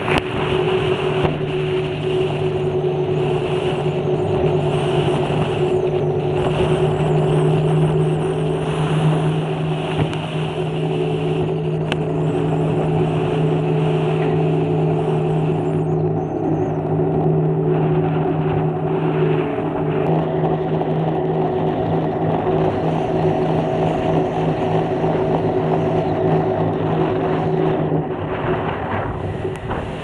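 A 26-seat aluminium jet boat running at speed through rough water: a steady engine drone over the rush of spray and wind, with a few short knocks as the hull meets the chop. Near the end the engine note drops away.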